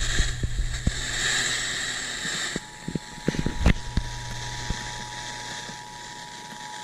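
Emergency Alert System broadcast over weak TV reception: hiss and crackling pops from a poor signal. About two and a half seconds in, a faint steady EAS attention tone near 1 kHz begins and holds.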